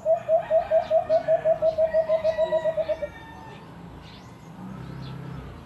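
A caged decoy bird calling: a fast run of short hooting notes, about seven a second, that stops about three seconds in.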